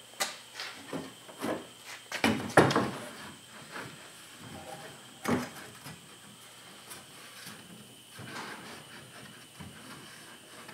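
A wooden board knocking and scraping against a metal jon boat as it is handled and set in place: a series of clattering knocks, loudest two to three seconds in and again about five seconds in, then softer rubbing and shuffling.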